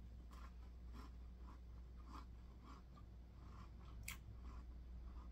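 Faint chewing of a mouthful of cracker, soft crunches about two a second, with one sharper click about four seconds in, over a low steady hum.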